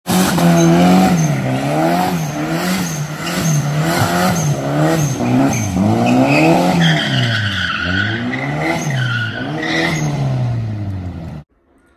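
Car engine revved hard with its pitch swinging up and down about twice a second while the tyres squeal and skid in a burnout and drift. The sound cuts off suddenly near the end.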